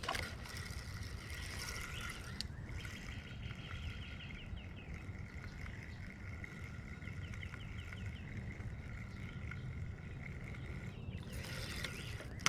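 Shimano Spirex spinning reel cranked steadily on a spinnerbait retrieve: a faint even whine with small repeated ticks. It pauses briefly about two and a half seconds in and stops about eleven seconds in, over a light wind rumble.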